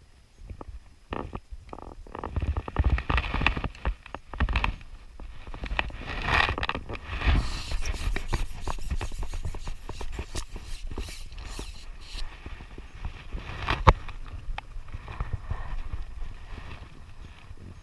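Irregular scrapes, rustles and knocks close to the microphone, with low rumbling and one sharp click about three-quarters of the way through.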